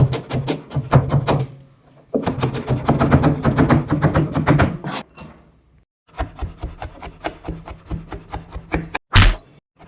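Knife chopping rapidly on a wooden cutting board, about seven strokes a second, in runs with short pauses. A single heavier thud near the end.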